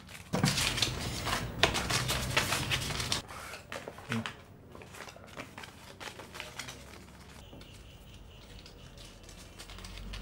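Paper rustling and crinkling as banknote-like paper is handled, for about three seconds, then a quiet room.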